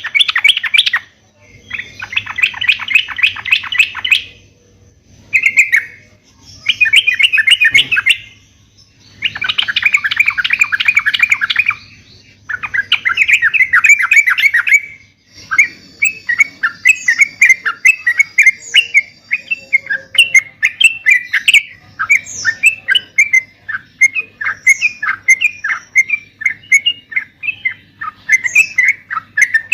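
Yellow-vented bulbul (trucuk) singing vigorously. It gives rapid chattering bursts of bubbly notes with short pauses between them, then from about halfway a steady unbroken string of quick notes with occasional higher whistles.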